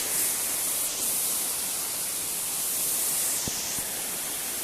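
Steady hiss of rushing water from a waterfall or its stream, with a faint knock about three and a half seconds in.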